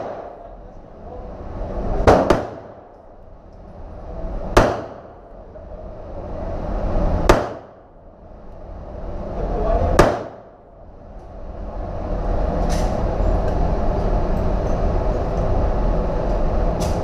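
Gunshots in an indoor shooting range, one every two to three seconds: a quick double shot, then three single shots. After that, two fainter shots sound over a steady noise.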